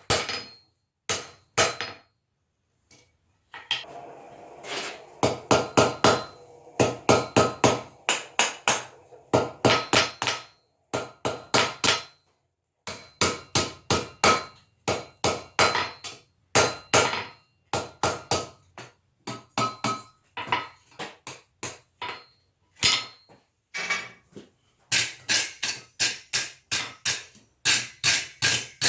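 A blacksmith's hammer striking hot iron on an anvil in runs of quick blows, about two to three a second, with short pauses between runs. The anvil rings briefly after each blow.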